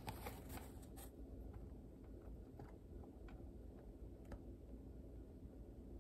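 Near silence: a low steady room hum with a few faint, light clicks of handling scattered through it.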